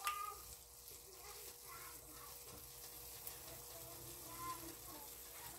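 Buñuelo de viento batter frying in hot oil in a small pan: a quiet, steady sizzle, with a brief sharp knock near the start.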